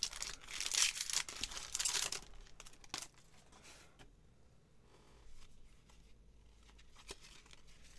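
A Yu-Gi-Oh booster pack's foil wrapper being torn open, crinkling loudly for about two seconds. A sharp click follows, then faint rustling as the cards are drawn out and handled.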